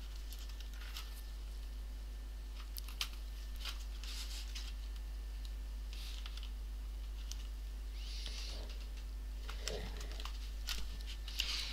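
Faint, scattered clicks and light scraping of gloved hands handling and prying at the plastic case of an HP 250 G5 laptop, over a steady low electrical hum.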